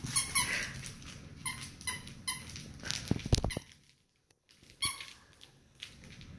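Several short high-pitched squeaks, about five spread through the clip, from a Labrador and a dachshund at play over a toy. A few soft low thuds come a little after three seconds, and the sound drops out briefly after them.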